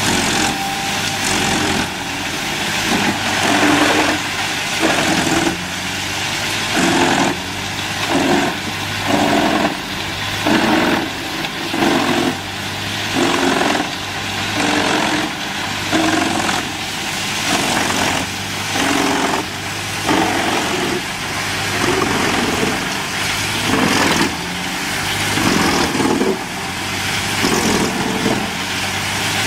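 A large engine-driven wood-processing machine running steadily, with a loud, regular surge about once a second, as of the machine biting into wood in repeated strokes.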